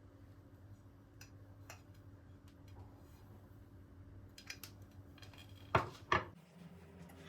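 Light clinks and taps of dishes and cutlery, with two louder knocks close together about six seconds in, over a low steady hum.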